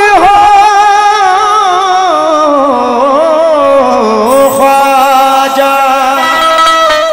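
Qawwali singing with harmonium: a male voice holds a long, ornamented line with heavy vibrato that slides down in pitch through the middle. From about four seconds in, steady held harmonium notes come forward under the voice.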